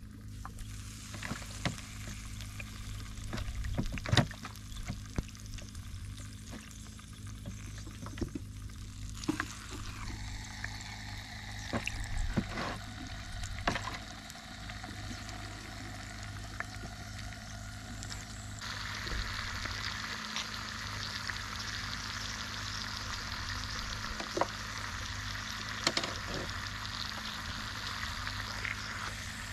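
Food frying in hot oil in a pan: a steady sizzle that starts suddenly about two-thirds of the way through, after a stretch of light clatter and knocks from utensils.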